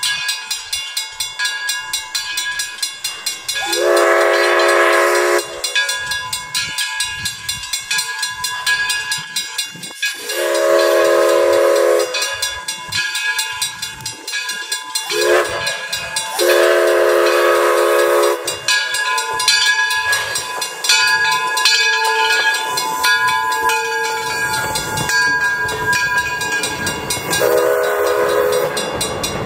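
Steam locomotive whistle blowing the grade-crossing signal, two long blasts, a short and a long, as the train approaches a crossing, then one more shorter blast near the end. In the last few seconds the coaches roll past.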